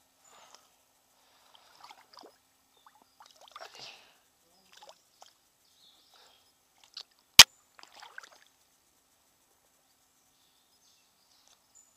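Faint splashing and sloshing of stream water as a hand goes into it, releasing a small perch just caught on a soft lure. A single sharp click about seven seconds in is the loudest sound.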